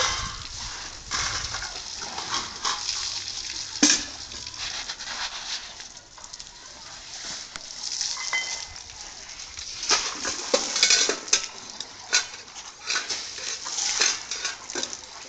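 Asian elephant spraying water from its trunk over its body, the water splashing and pattering irregularly onto its back and the wet concrete, with a sharper knock about four seconds in.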